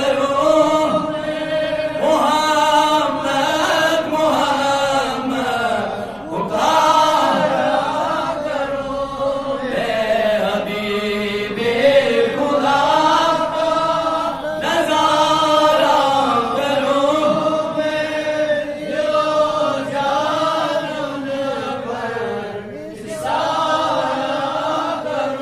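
A man's voice chanting an Urdu devotional naat unaccompanied into a microphone, in long held notes that bend and slide from one pitch to the next.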